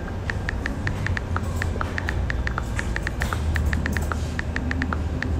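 Smartphone on-screen keyboard clicking as a message is typed: rapid, irregular short ticks, several a second, with a brief pause now and then. A steady low hum runs underneath.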